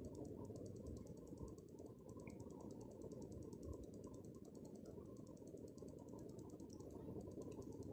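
Near silence: only a faint, steady low background noise, with no distinct clank or scrape standing out.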